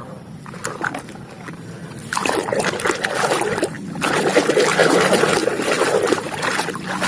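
Water splashing and sloshing in a basin as a muddy toy vehicle is swished and scrubbed by hand. It starts about two seconds in, breaks off briefly, then goes on louder.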